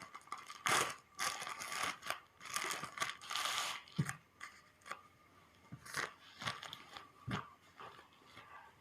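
A parcel's packaging being torn open and crinkled by hand, in several rustling, tearing bursts over the first four seconds, followed by a few light knocks and handling sounds.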